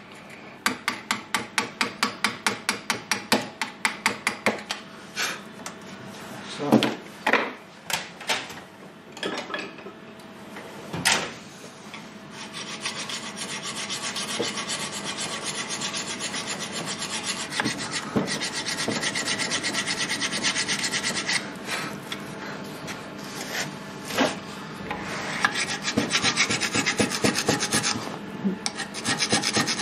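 Metal scraping on the rusty pad slots of a brake caliper carrier clamped in a vise, cleaning off raised rust and metal that would make the gap too tight for the brake pads. It starts as even strokes about three or four a second, has a few knocks, and then turns into a long stretch of fast, steady scraping, which comes back near the end.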